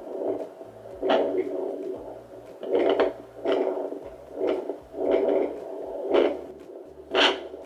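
Sonoline B handheld fetal Doppler's speaker giving uneven whooshing pulses, roughly one to two a second, as its probe is moved over the gel on a pregnant belly searching for the baby's heartbeat.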